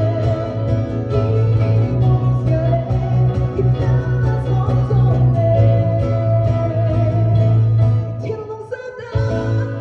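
A woman singing a worship song into a microphone over instrumental accompaniment with a strong, steady bass. The music thins out and dips briefly shortly before the end.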